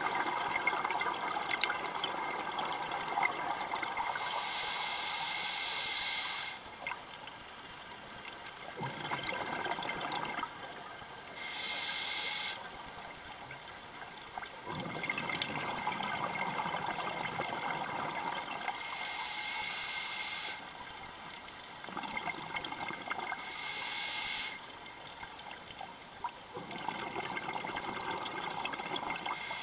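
Scuba diver breathing through a regulator, heard from underwater: a loud hiss on each inhale, repeating about every six or seven seconds, with a lower bubbling rumble from the exhaled air in between.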